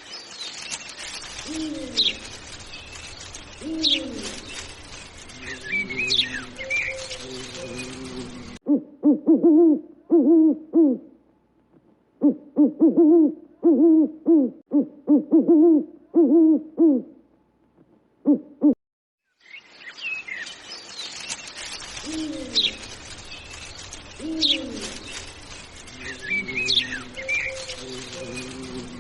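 Owl hooting. Softer low hoots sound among chirping birdsong at first and again near the end. In the middle comes a loud, long run of low hoots in quick groups.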